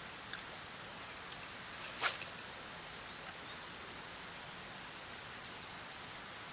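Quiet outdoor ambience, a steady hiss, with a faint high-pitched tick repeating about twice a second through the first half and one sharp click about two seconds in.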